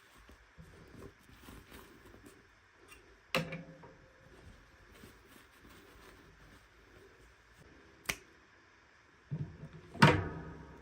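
Hands handling toy packaging and small doll pieces: faint rustling and fiddling broken by a few sharp clicks and clacks, the loudest near the end.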